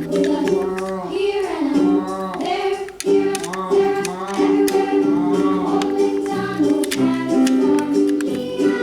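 Background music: a bright sung melody over a plucked string accompaniment with a steady beat.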